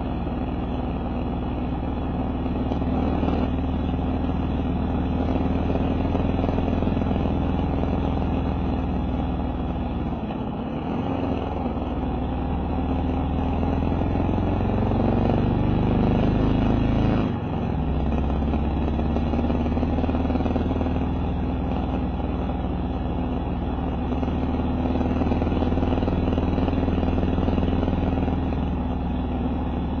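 Kawasaki KLR650's single-cylinder four-stroke engine running under way. The engine eases off briefly about ten seconds in, then pulls with a rising pitch that drops suddenly at a gear shift a little past halfway, and runs steadily again.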